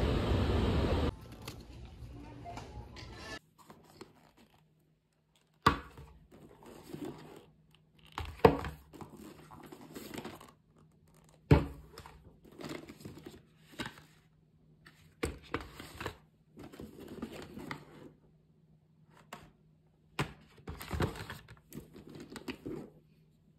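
A loud rushing noise cuts off abruptly about a second in. Irregular rustling and crinkling follow, broken by several sharp knocks, over a faint steady hum.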